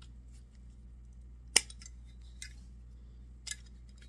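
Metal clicks and snaps of a pair of vise grips (locking pliers) being worked by hand: one sharp click about one and a half seconds in, a smaller snap near the end and a few light clicks between.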